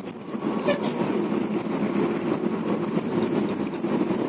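Intercity bus engine running steadily, a low even drone.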